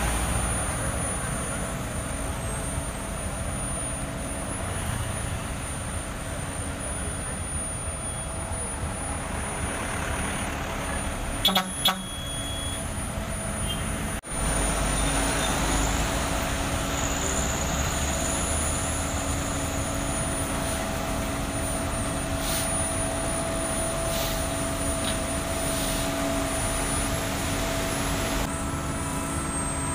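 Diesel engines of an asphalt paver and the dump truck feeding it running steadily. A vehicle horn gives a short double honk about twelve seconds in.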